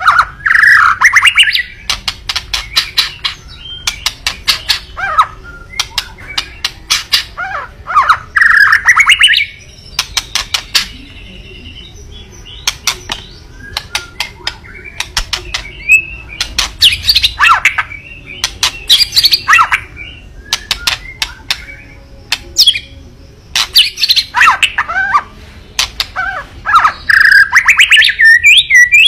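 White-rumped shama giving harsh, rapid rattling 'kretekan' calls mixed with short warbled song phrases. The calls come in bursts every second or two with brief pauses between them. This is the bird's agitated challenge call.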